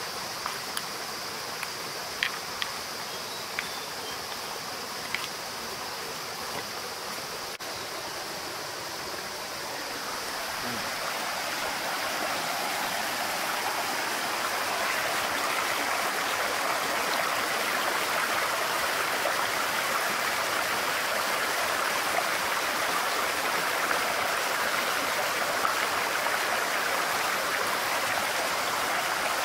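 Shallow stream rushing over rocks, swelling about ten seconds in and then running on steady and louder. In the first few seconds, a few sharp clicks of a digging tool knocking against stones in a soil bank.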